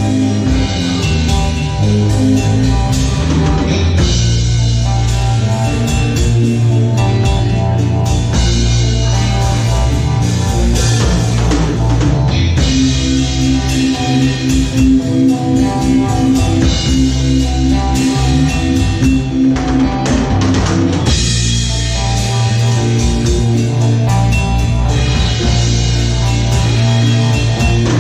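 Psychedelic rock music: drum kit and guitar playing over a steady low bass line.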